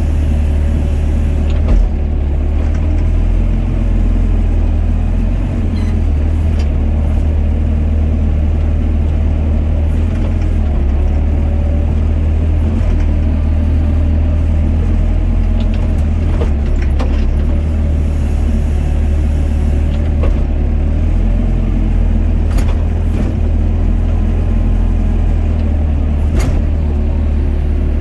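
Doosan DX55 mini excavator's diesel engine running steadily under working load while the bucket digs a trench, heard from the operator's cab, with a few short sharp knocks scattered through it.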